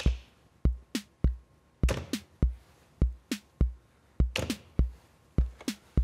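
Roland TR-606 Drumatix drum machine playing a pattern. Its bass drum keeps a steady beat a little under two a second, and snare drum hits, some in quick pairs, are being programmed in between the bass drum beats.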